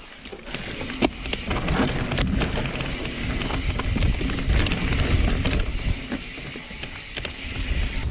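Mountain bike, a Norco Sight, rolling fast down a dirt trail: steady tyre and rolling noise under a dense run of clicks and rattles from the chain and bike over bumps.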